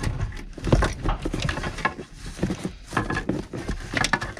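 An engine wiring harness and its plastic connectors being pulled by hand down behind a car's dashboard: irregular rustling, scraping and small knocks of wires and plastic against the dash panels.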